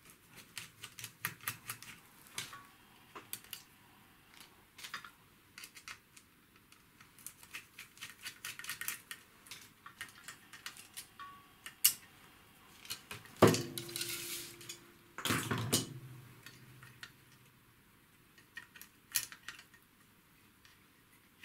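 A small screwdriver turning out screws on a circuit board, with many quick metal clicks and ticks. Just past halfway come two louder clatters, the first with a brief ring, then a few light ticks as the board is handled.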